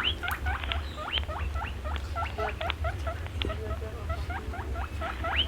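A group of small animals squeaking rapidly. The short, high calls each sweep sharply upward, several a second and overlapping, over a steady low hum.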